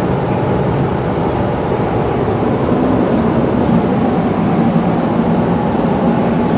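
Steady city street noise, like traffic passing, with a low hum coming in about halfway.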